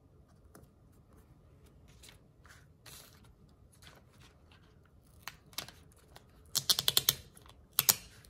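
Hands handling a spiral-bound planner and sticker sheets: faint taps and paper rustles, then a quick run of sharp clicks about six and a half seconds in and a second short cluster near the end.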